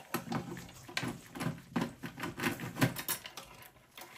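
Irregular light clicks and scraping of a screwdriver and gloved hands working a screw out of the steel chassis of a Dell Inspiron 3020 desktop, several small knocks a second, stopping near the end.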